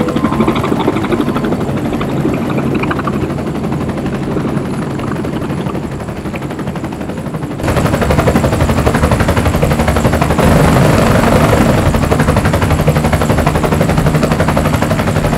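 Float-equipped Bell 206 JetRanger helicopter coming in to land, its rotor blades chopping fast and evenly over the engine's running. The sound steps up suddenly and louder about eight seconds in.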